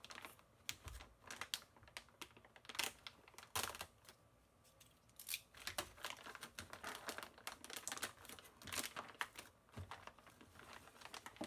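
Clear plastic bags crinkling and crackling as hands handle them, in quick irregular bursts of crackles.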